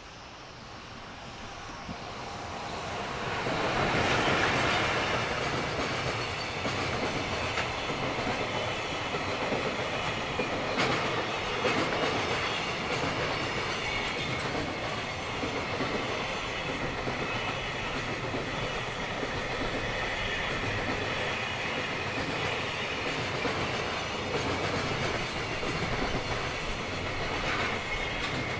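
JR Freight EF210 electric locomotive passing at the head of a long freight train of container wagons. The sound swells as the locomotive goes by about four seconds in, then settles into the steady rolling rumble of the wagons with occasional sharp knocks.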